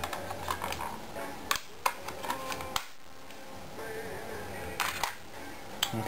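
Plastic RAM access cover on a Samsung NC10 netbook's underside being pulled free of its clips and set down: a scatter of sharp plastic clicks and light knocks.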